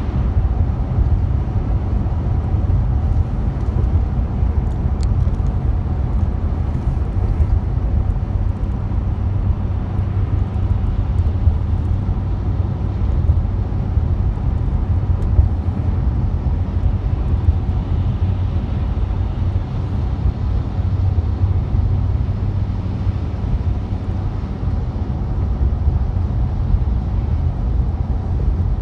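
Car driving at highway speed: a steady low rumble of tyres and engine.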